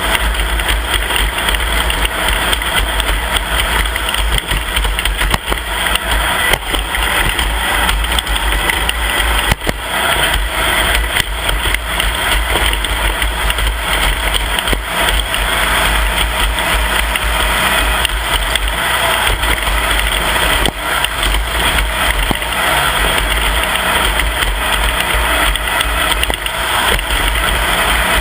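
Off-road race vehicle running steadily, its engine noise mixed with a heavy low rumble, without a break.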